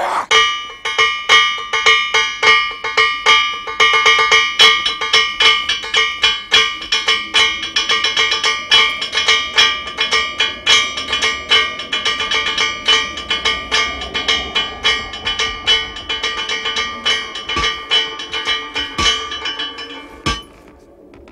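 Metallic percussion: quick, steady strikes on ringing metal, several a second, each leaving the same bell-like tones hanging. It starts suddenly and cuts off a second before the end.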